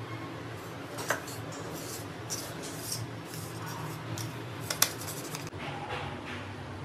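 Hands pressing and patting a batter-coated potato patty in dry breadcrumbs on a plate, with the crumbs rustling and scraping in short bursts. Two sharp clicks stand out, about a second in and near five seconds in, over a steady low hum.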